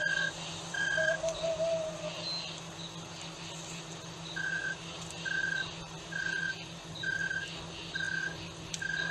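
Night jungle ambience: a short high piping note repeats about every 0.8 seconds, with a pause between about one and four and a half seconds, over a faint chorus of insects. In the first two seconds a longer, lower held call sounds and then fades out.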